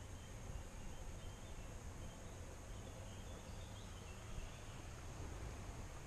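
Faint outdoor ambience: a few faint bird chirps over a steady hiss of running river water.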